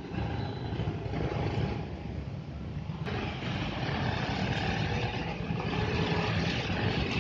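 Steady rumble of road traffic passing over a bridge, with a brief click about three seconds in.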